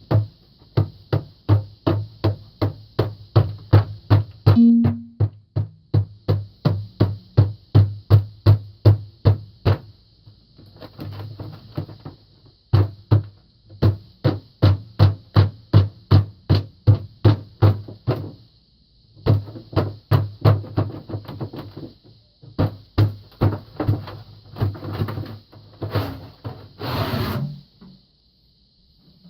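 Repeated hammer blows on a cast refractory furnace liner and its tire-and-duct form, knocking the form loose: a steady run of dull thuds about two to three a second, stopping briefly a few times. A short rasping, scraping noise comes near the end.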